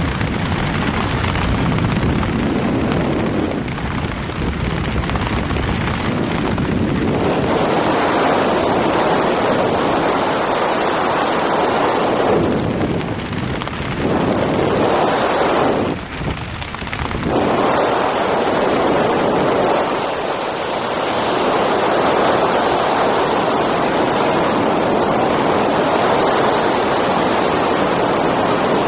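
Loud rushing and buffeting of wind over the microphone in flight, rising and falling with two brief dips about halfway through.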